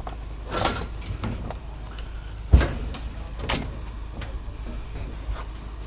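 Scrap metal being unloaded: scattered clanks and knocks, the loudest about two and a half seconds in, over a steady low rumble.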